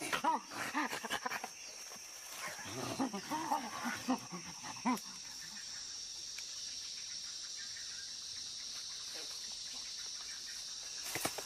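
Chimpanzees calling, a run of short rising-and-falling cries in the first five seconds, then falling quiet. A steady high insect drone of the forest goes on underneath.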